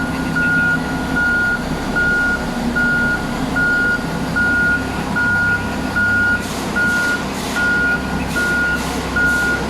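Komatsu HD785-7 haul truck's V12 diesel engine running with a knock, under a back-up alarm beeping about once every 0.8 s. The knock is one the mechanics take for a blown engine, with a piston through the block. A few short, sharp noises come in the last three seconds.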